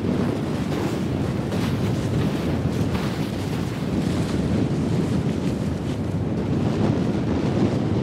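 Wind buffeting the microphone: a loud, steady, deep rushing noise.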